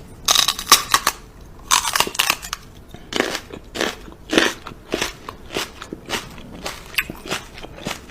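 Repeated crunching: two quick flurries of crackly crunches, then single crunches about twice a second.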